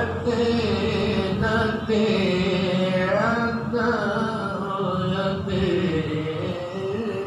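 A young female qariah reciting the Quran in the melodic tilawah style into a hand-held microphone. Long held notes slide and waver up and down in ornamented runs, with a short break for breath about two seconds in.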